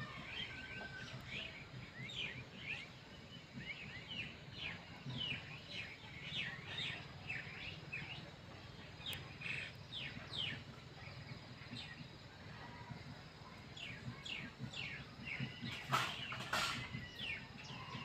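Small birds chirping over and over in short, quick downward-sliding notes, with two sharp knocks about two seconds before the end.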